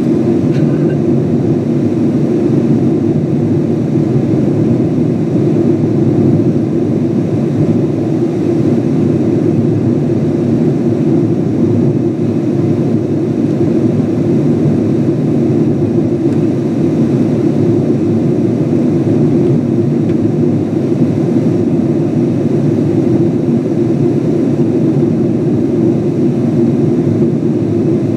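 Steady cabin noise of a Boeing 777-200 in its climb: its jet engines and the airflow past the fuselage, heard from inside the cabin as an even, deep drone that does not change.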